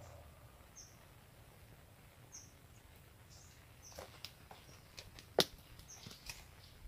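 A small bird giving a handful of short high chirps a second or so apart over quiet ambience, with scattered sharp clicks in the second half, the loudest about five and a half seconds in.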